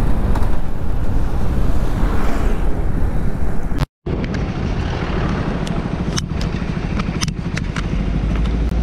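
Motorcycle riding along, engine drone mixed with wind rushing over the microphone. The sound drops out for an instant about four seconds in, then a steadier engine drone goes on with a few sharp clicks.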